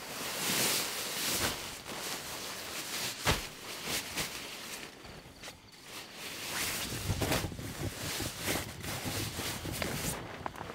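Nylon sleeping bag rustling and crinkling in irregular bursts as it is handled, unrolled and spread out, with a single thump about three seconds in.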